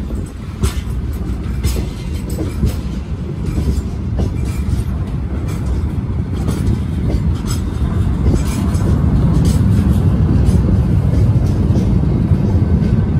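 Freight wagons rolling past: open gondola cars and then timber flatcars. The wheels click and clack over the rail joints above a steady low rumble, which grows louder in the second half.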